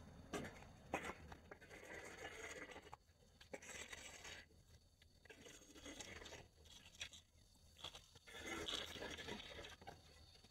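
Faint, irregular crackling and scraping of dry branches and twigs being pulled out and handled.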